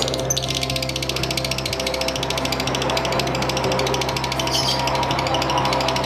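Lovebird ngekek: a long, unbroken high-pitched chattering trill of rapid, evenly spaced notes, like a ratchet.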